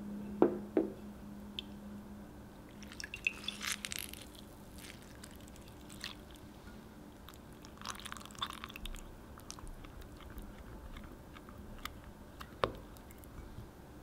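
Silicone spatula stirring and scraping thick melted chocolate and cream in a glass measuring cup: soft, wet squishing in short spells, with a couple of sharp taps against the glass about half a second in and another single tap near the end.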